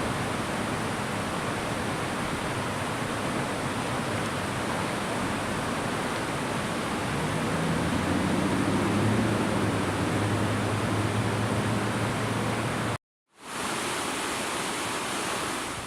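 Steady rushing noise across the whole range, with a low hum of a few steady pitches joining it from about seven to twelve seconds in. The sound cuts out abruptly for about half a second near the end, then resumes.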